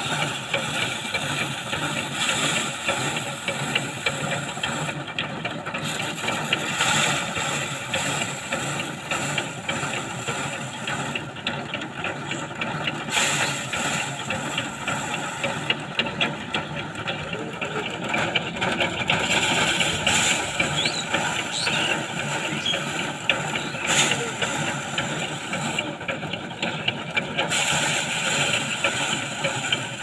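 Pedal-operated rice thresher running: the spinning wire-toothed drum rattles steadily as rice sheaves are held against it, grain and straw clattering against the machine's hood.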